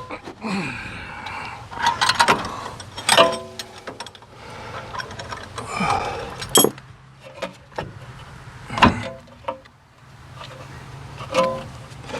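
Irregular clinks and clanks of metal hand tools on the rear brake caliper and its bolts as the caliper is worked loose. Several strikes ring briefly, with one around three seconds in and another near the end.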